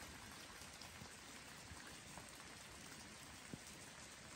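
Faint light rain falling: an even hiss with a few scattered soft ticks.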